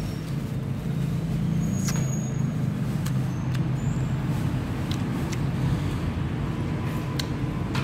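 Steady low engine rumble of road traffic, with a few light clicks and ticks scattered through it.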